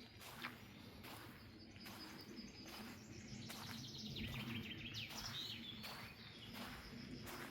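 Footsteps crunching on the forest floor at a steady walking pace, with a songbird singing a trilled, falling phrase about halfway through.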